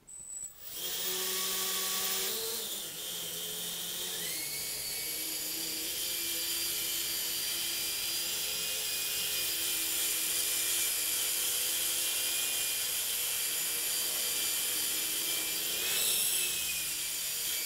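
Hirobo Quark electric micro RC helicopter spooling up: the motor and rotor whine rises in pitch over the first few seconds, then holds steady on its epoxy-repaired main blades. Near the end the pitch briefly swells as the helicopter lifts off into a hover.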